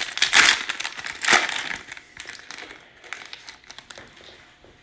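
Foil wrapper of a basketball trading-card pack being torn open and crinkled: two loud crinkles in the first second and a half, then softer crackling that dies away.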